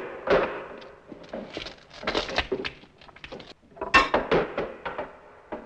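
A rapid series of sharp knocks, clinks and thuds, several a second, with the loudest strike about four seconds in.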